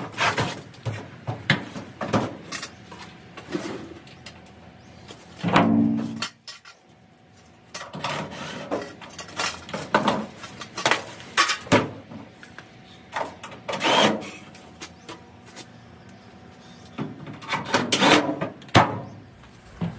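Irregular knocks, clicks and rattles of a GE/Hotpoint dryer's cabinet panels being handled and pushed back into place, with a few louder knocks scattered through.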